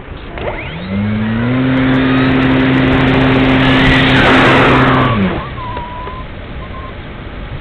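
Electric motor of a Parkzone Radian Pro motor glider spinning up its propeller in a rising whine, running at a steady hum for about four seconds, then cutting off abruptly. Loud air rush over the wing-mounted camera builds with it and fades after the cut.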